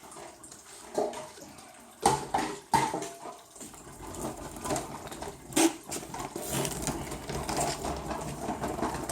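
Used engine oil draining from an old oil filter into a can, with sharp knocks of the filter and can being handled about two seconds in and again a few seconds later.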